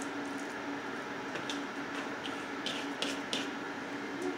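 Bare hands patting and pressing raw ground chicken into a burger patty: a few short, soft pats, the last near the end as the patty is set on the foil-lined tray, over a steady low hum.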